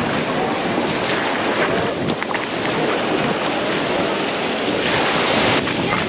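Small sea waves breaking and washing up on a sandy beach, with wind on the microphone; one wave breaks louder about five seconds in.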